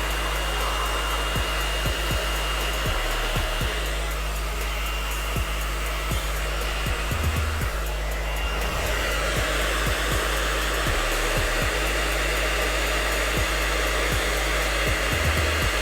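Hair dryer running steadily, blowing hot air, used on high heat to set a rubberized grip wrap on a pistol frame.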